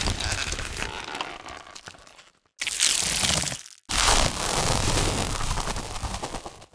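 Three separate designed sound effects of cracking and crunching, each starting abruptly and fading out, with short silent gaps between them.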